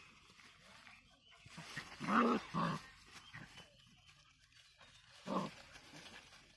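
Puppies play-fighting, with short dog vocalisations: a quick pair about two seconds in and a single one at about five and a half seconds.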